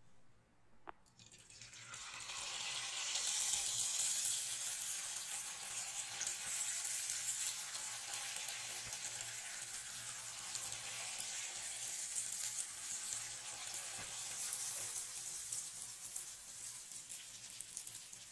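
Jalebi batter frying in hot oil in a pan: a steady sizzle that starts up about a second and a half in, after a short quiet spell with a single click.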